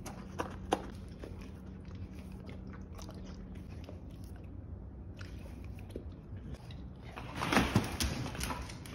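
Pit bull mix eating whipped cream from a bowl: wet licking and chewing with a few sharp smacks in the first second. A louder burst of noise comes near the end as the dog moves away.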